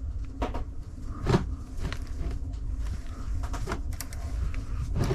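A series of separate knocks and clunks, the loudest about a second and a half in, over a steady low rumble.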